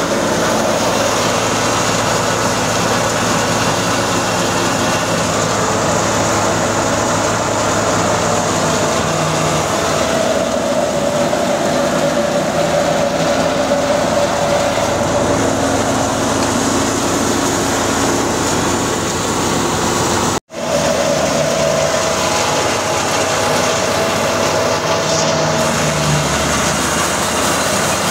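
Belt-driven wheat thresher threshing mustard, powered by a New Holland Ghazi 65 tractor's diesel engine: a steady machine drone with a held mid-pitched tone over the engine's low hum. The sound cuts out for an instant about two-thirds of the way through.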